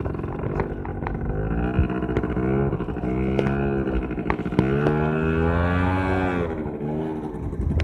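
Motorbike engine running on the move, its pitch rising and easing in three long swells with the throttle, over a steady low rumble.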